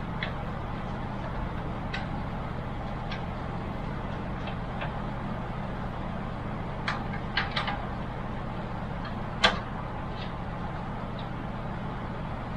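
Scattered small clicks and taps of cables and parts being handled inside a computer case, with one sharper click about nine and a half seconds in, over a steady low hum.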